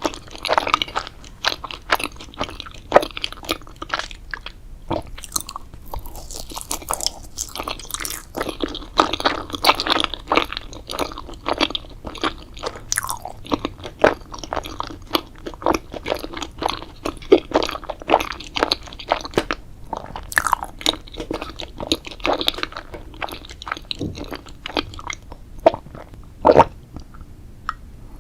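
A person chewing and biting crunchy food, a dense, irregular run of crunches.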